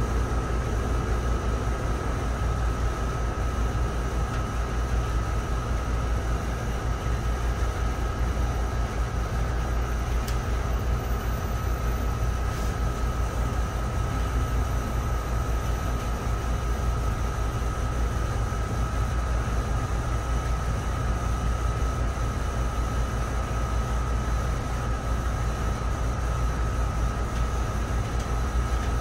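Steady mechanical hum of rooftop air-conditioning machinery running, a constant low rumble with a thin, even whine over it that does not change.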